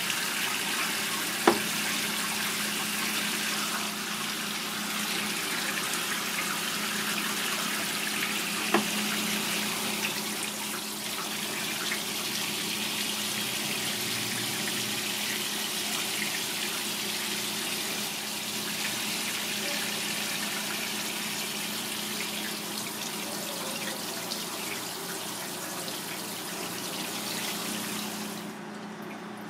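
Tap water running steadily into a sink, over a steady low hum. There are two sharp knocks, about a second and a half in and again near nine seconds. The running water stops near the end.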